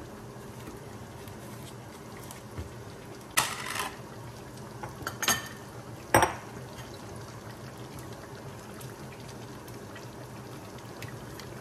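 A pot of chicken and tomatoes simmering on a gas hob, a steady low bubbling hiss, with three short clatters of dishes and a spoon about three, five and six seconds in, the middle one ringing briefly.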